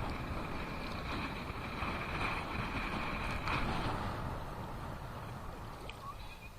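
Small Black Sea waves splashing and washing on the shore, swelling a little in the middle, with wind rumbling on the microphone. A thin, steady high tone runs through the first half and stops a little past halfway.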